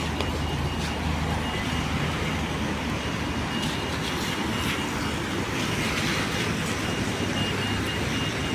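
Steady street traffic noise: a vehicle engine's low, even hum under a continuous hiss, as of tyres on a wet road.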